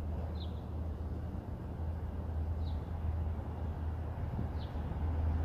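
Steady low rumble of city street background with a small bird giving three short, high chirps about two seconds apart.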